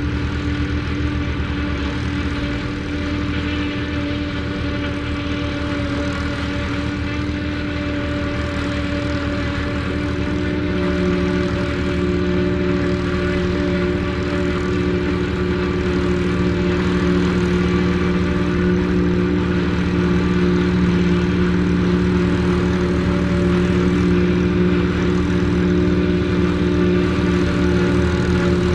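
Volvo BM 350 Boxer tractor running under load, powering a one-row Taarup forage harvester that is chopping standing corn and blowing it into a trailer, with the second tractor's engine running alongside. A steady droning hum with strong tones; a deeper tone comes in about ten seconds in, and the sound grows slowly louder.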